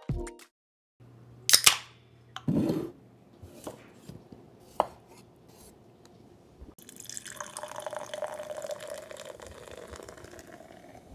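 Beer poured into a glass mug, running and fizzing, starting about seven seconds in. Before it, a few separate knocks and clicks.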